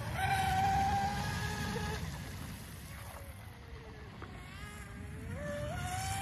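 Electric motor whine of a radio-controlled sponson racing boat running on the water. The whine holds steady at first, fades and drops in pitch in the middle as the boat eases off through a turn, then climbs again in steps near the end as the throttle opens up.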